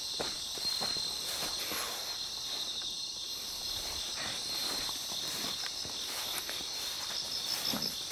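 Footsteps of someone walking on the ground, irregular and soft, over a steady high-pitched drone of insects.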